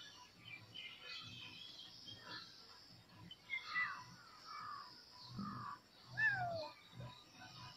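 Kittens meowing: a few short cries that fall in pitch, the loudest about six seconds in, with birds chirping in the background.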